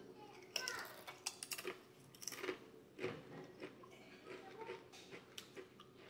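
A person biting into and chewing a wavy Pringles chip: a quick run of crisp crunches, densest in the first couple of seconds, then fainter, more spaced chewing.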